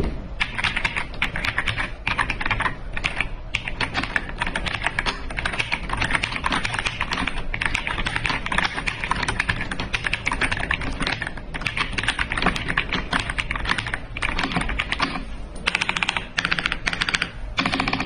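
Keys of an AJAZZ AK820 Pro 75% mechanical keyboard being typed on rapidly, a dense continuous clatter of key clicks with a couple of brief pauses in the second half.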